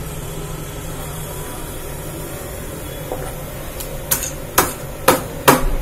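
A hand works beaten rice with lumpy jaggery and nuts in a stainless steel bowl. From about four seconds in come four sharp knocks against the metal bowl, about two a second, as the jaggery lumps are broken up, over a steady low hum.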